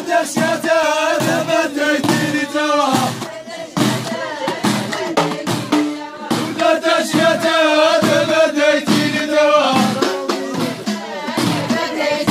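Ahidous: a group of men chanting together in long, wavering held notes, over a steady beat of large frame drums (bendir). The singing breaks off briefly twice before the voices come back in.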